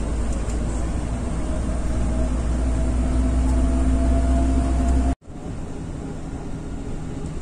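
Running noise inside a moving vehicle: a steady low rumble with a faint whine that rises slowly in pitch, cut off abruptly about five seconds in and followed by a slightly quieter steady rumble.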